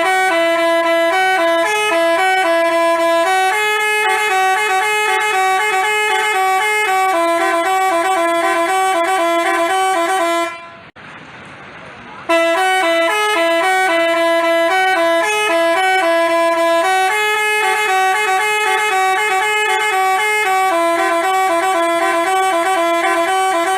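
Telolet Basuri musical bus horn playing a tune in quick stepping notes, with more than one horn tone sounding at once. The tune breaks off about ten and a half seconds in and starts over a second and a half later.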